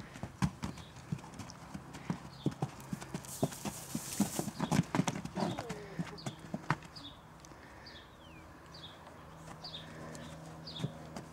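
Hooves of a mare and her day-old foal stepping about on a sandy paddock, an irregular run of knocks and thuds.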